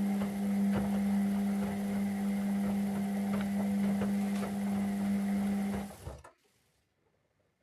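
Zanussi washing machine's motor running with a steady hum and faint repeated clicks from the turning drum, then stopping abruptly about six seconds in.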